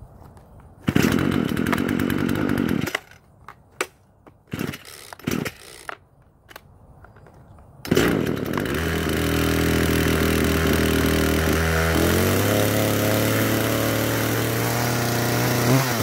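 Poulan two-stroke gas chainsaw being pull-started: it fires for about two seconds and dies, there are a few short sounds as the starter cord is pulled again, then about eight seconds in it catches and runs steadily, its pitch shifting about four seconds later. This is the saw's first run on its newly fitted bar and chain.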